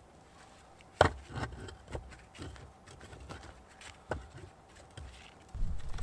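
Firewood being handled and split with a hatchet: a sharp wooden knock about a second in, then lighter, irregular wooden knocks and a few dull thuds near the end.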